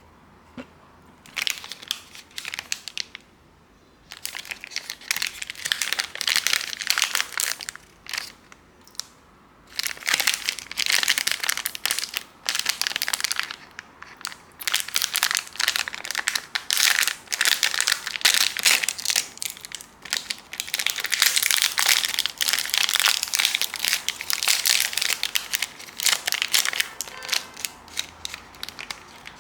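Plastic snack packaging being handled and opened, crinkling and crackling in irregular bursts with short pauses between them.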